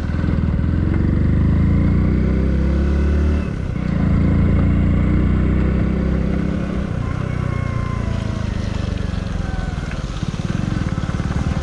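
Motorcycle engine running as the bike is ridden along, heard from the rider's own bike. The engine note drops briefly about three and a half seconds in, then picks up again.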